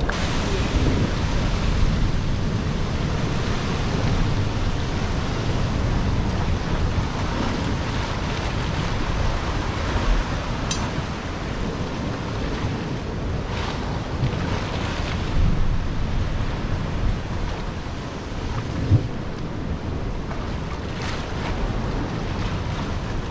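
Sea surf washing against a rocky shore, with wind buffeting the microphone. A couple of brief knocks stand out.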